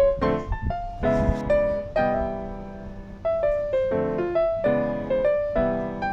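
Background piano music: chords and melody notes struck every half second or so, each fading away.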